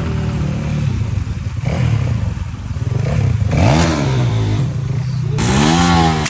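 Small motorcycle engine running and revved three times, the pitch rising with each rev. The last rev, near the end, is the loudest.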